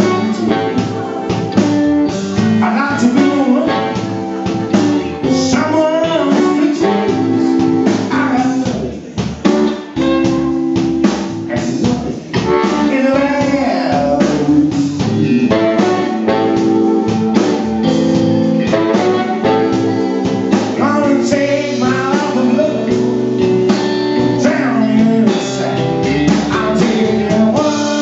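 Live British rhythm and blues band playing a blues number: electric guitar, electric bass and drum kit, with a blues harmonica and a male lead singer.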